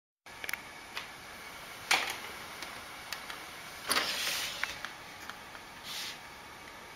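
A few light clicks and knocks over a steady hiss, a sharper knock about two seconds in, and a half-second rustle about four seconds in as the camera is moved.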